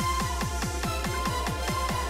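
Electronic background music with a deep, pitch-dropping kick drum beating about four times a second under a steady synth line.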